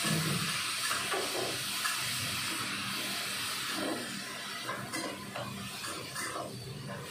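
Hot wok of tempe and bean sprouts hissing and sizzling as a little added water boils off. The hiss fades about four seconds in, while a spatula stirs and knocks against the wok.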